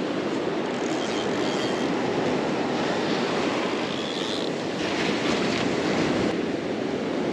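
Surf breaking and washing up the beach in a steady rush, with wind buffeting the microphone.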